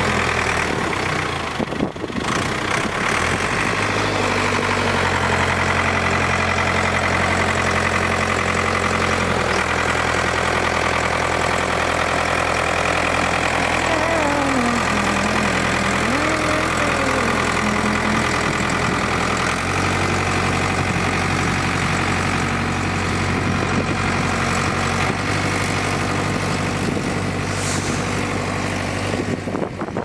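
Ford 555C backhoe's Ford industrial diesel engine running steadily under load while the loader pushes snow. Its engine note shifts a few times as the revs change.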